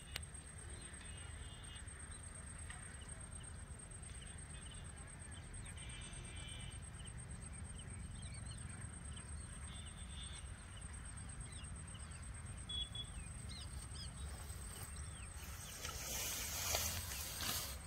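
Rural outdoor background by the water: a steady high-pitched trill, a few faint bird chirps and a low wind rumble. Near the end there is a louder rustle of grass and handling.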